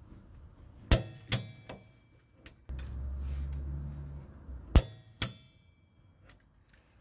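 Click-type torque wrench on the upper control arm's 8 mm hex ball-joint bolts, giving two pairs of sharp metallic clicks, about a second in and again near five seconds, each pair the wrench reaching its set torque of 60 Nm. A low hum runs for about two seconds between the pairs.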